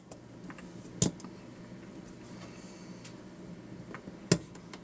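Small metal clicks from the brass levers and parts of a disassembled safety deposit lever lock being handled by hand: two sharp clicks, about a second in and near the end, with a few faint ticks between.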